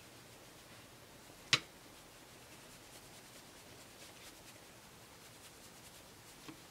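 Faint swishing of a Morphe M527 powder brush sweeping bronzer across the skin, with one sharp click about a second and a half in and a small click near the end.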